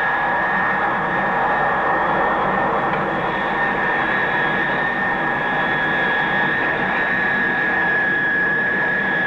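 Jet engine running at full power: a steady high whine over a continuous rushing roar, with no change in pitch or loudness.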